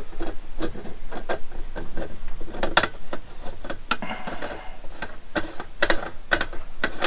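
Brass fuel reservoir of a Weems & Plath yacht oil lamp being screwed by hand into the brass lamp body: a run of irregular small metallic clicks and scrapes from the threads and fittings, a few louder ones about three seconds in and near the end.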